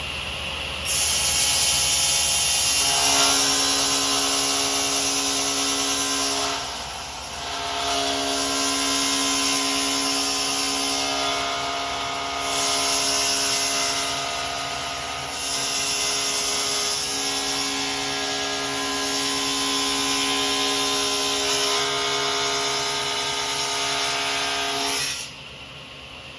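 Table saw running and cutting ledges into a foam-core composite panel, its blade set to just short of the outer Filon skin. It starts about a second in and stops shortly before the end, with its hum and hiss changing a few times as the cut goes on.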